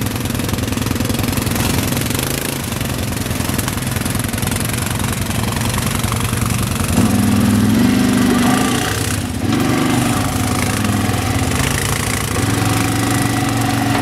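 Quad bike (ATV) engine running at low speed over a rough dirt trail, its pitch rising several times in the second half as the throttle is opened.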